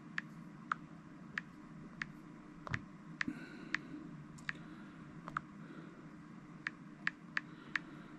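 Typing on a smartphone's touchscreen keyboard: short, sharp key clicks at an uneven typing pace, about two a second, over a faint low hum.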